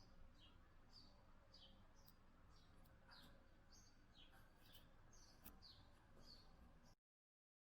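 Faint bird chirping: many short, falling chirps, several a second, over a low hum. It cuts off suddenly near the end.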